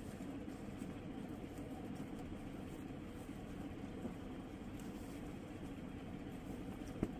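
Steady low background noise with no speech, such as room hum or distant traffic, with one faint click near the end.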